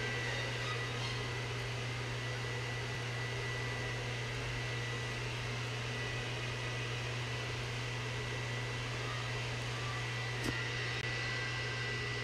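Steady low mechanical hum with an even hiss and a faint steady high tone. A single short click about ten and a half seconds in.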